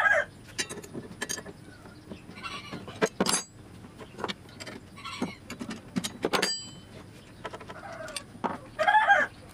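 A chicken clucking and calling several times, loudest near the end, over sharp metal clinks. Two of the clinks ring briefly, as dado-stack blades and wrenches are handled inside a table saw.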